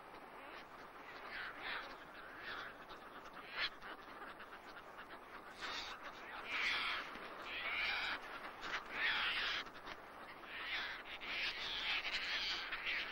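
Caspian terns calling in a nesting colony: harsh, rasping calls, several birds overlapping, coming thicker and louder from about halfway through.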